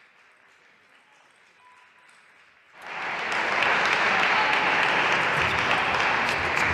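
Faint hall ambience, then about three seconds in, loud steady crowd applause starts abruptly.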